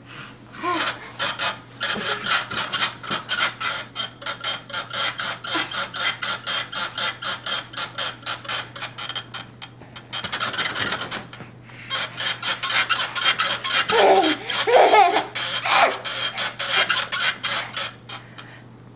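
A baby scraping and rubbing at his playpen, making a repeated rasping sound at about two strokes a second that pauses briefly midway and then resumes. The baby laughs briefly during the second run of rasping.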